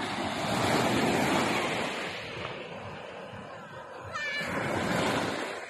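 Waves washing in and drawing back, in two swells of rushing noise: one that peaks in the first two seconds and a second near the end. A short high call cuts in about four seconds in.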